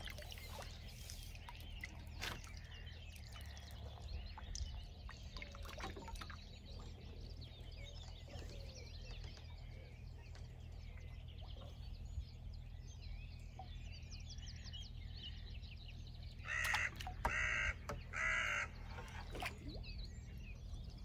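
A crow cawing three times in quick succession about three-quarters of the way through, over faint songbird chirps and a steady low rumble of wind.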